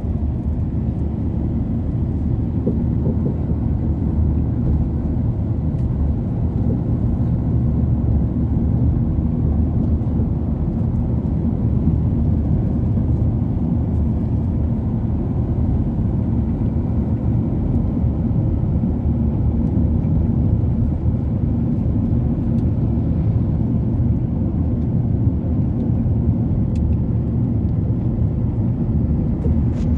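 A steady low rumble that holds even throughout.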